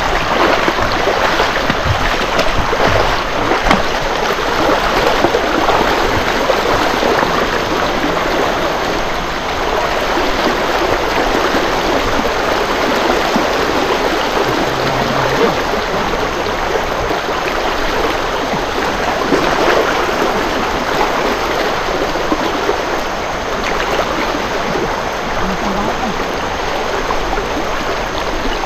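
Fast-flowing floodwater of a swollen river rushing steadily around a person wading through it.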